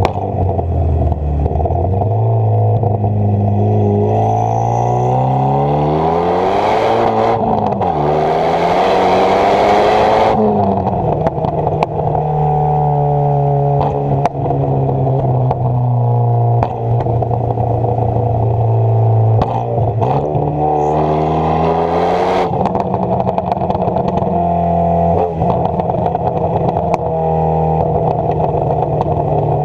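Renault Mégane 225's remapped 2.0 turbo four-cylinder running through a decatted stainless exhaust with the back box deleted, driven through changing revs. The revs climb hard about six to ten seconds in with a rush of noise, then drop back, and the exhaust pops and crackles on and off while the engine holds steady; it rises again briefly around twenty seconds in.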